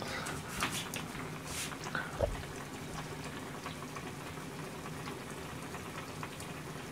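Quiet kitchen background: a steady low hum with the faint bubbling of a pot simmering on the stove, and a few faint short clicks and knocks in the first couple of seconds.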